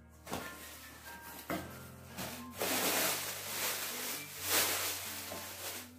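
Plastic air-pillow packing rustling and crinkling as it is pulled out of a cardboard box, loudest in two stretches in the second half.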